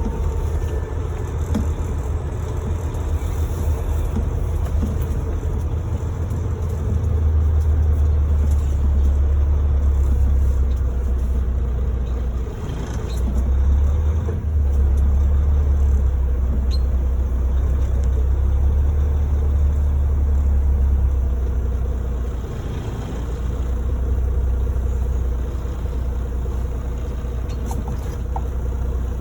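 Volvo VNL semi truck's diesel engine running while driving, a steady low drone. It grows louder for a long stretch in the middle, with a brief dip about twelve seconds in.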